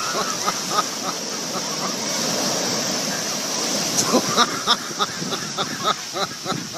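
Surf washing over shallow water at the shoreline: a steady rush of breaking waves, with a run of short, sharp sounds from about four seconds in.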